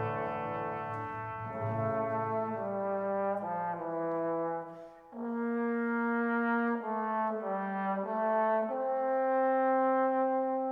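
Classical music: brass instruments, French horn prominent, playing a slow sustained passage of held chords that change every second or so, with a brief break about five seconds in.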